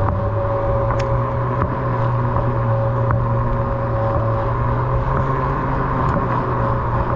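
Onewheel XR electric hub motor humming steadily as the board rolls along at an even speed, with a few light clicks.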